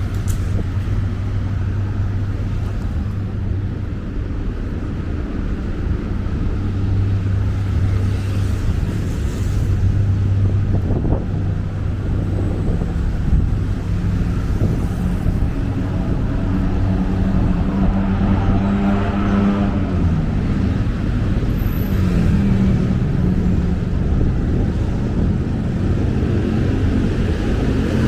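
City street traffic: vehicle engines running and passing with a steady low hum. Past the middle, one engine rises in pitch as it pulls away, then drops.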